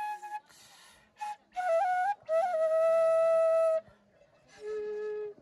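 Background music: a slow melody of long held notes that step in pitch, with short silent gaps between phrases.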